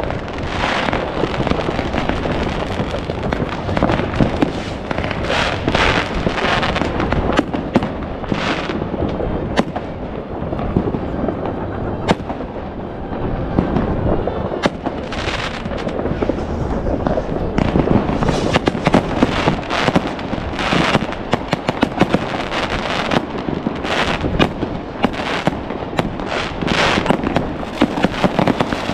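Dense New Year's Eve fireworks: a continuous barrage of bangs, cracks and crackling from firework batteries, rockets and firecrackers going off all around, with hissing rocket whooshes now and then.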